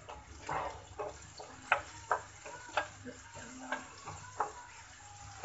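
Wooden spoon stirring chopped onion and cumin frying in a little oil in a steel kadai: irregular scrapes and knocks of the spoon against the pan, roughly one a second, over a faint sizzle.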